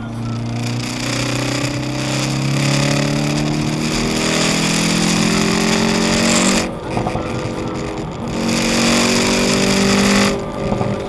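Car engine under hard acceleration, its pitch climbing steadily. It drops and goes quieter at a gear change about seven seconds in, then climbs again up to another gear change near the end.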